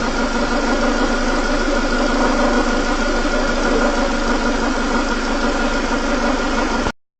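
Engine idling steadily, recorded to show an extraneous noise that the owner cannot place; it cuts off abruptly near the end.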